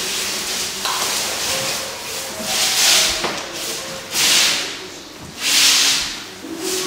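Ambient sound score of rhythmic swelling hiss, one rise and fall about every second and a half, over faint sustained low tones.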